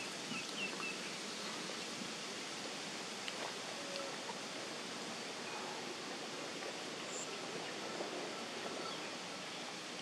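Steady outdoor ambience, an even hiss, with a few faint bird chirps in the first second.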